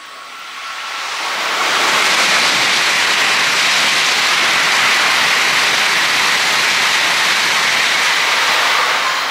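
N700-series Tokaido Shinkansen train passing through the station at high speed without stopping: a loud, steady rushing that builds over about two seconds, holds, and begins to fade near the end.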